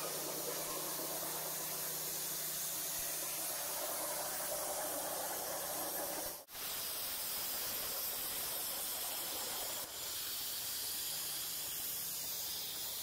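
Hypertherm 85 plasma torch cutting 1-inch AR-400 steel plate: a steady hiss, broken once about six and a half seconds in.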